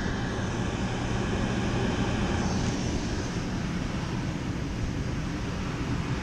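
Steady mechanical drone from rooftop HVAC equipment running, with a low hum under an even rushing noise.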